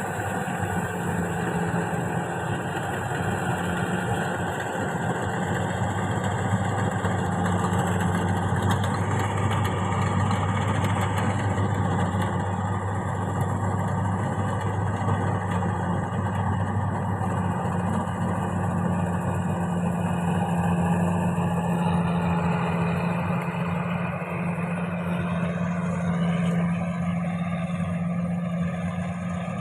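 Rice combine harvester's engine running steadily, with a constant low hum.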